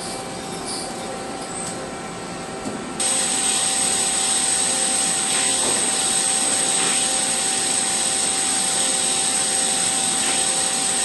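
Machinery running steadily, a CNC machine at work: a continuous mechanical noise with a steady high whine. It steps up suddenly and gets louder about three seconds in.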